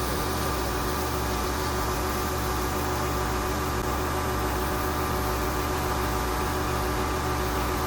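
Pressure washer running steadily: a constant engine hum with a few steady tones under an even hiss.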